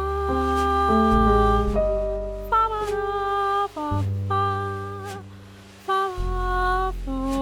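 Slow jazz ballad played by piano, double bass and drums, with perhaps a voice: long held notes and chords over low bass notes, changing every second or two, with no words sung.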